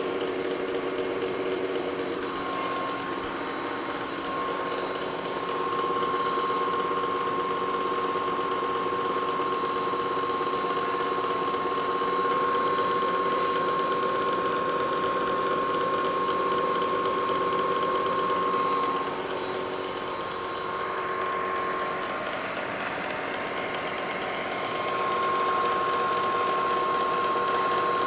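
Lagun vertical milling machine's spindle turning a 1/4-inch end mill at 2500 RPM as it cuts a slot through a plastic block under power feed: a steady machine hum with a high whine. The whine drops out for a few seconds past the middle and comes back.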